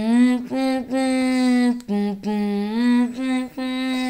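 A child singing a wordless tune in long held notes with short breaks between them.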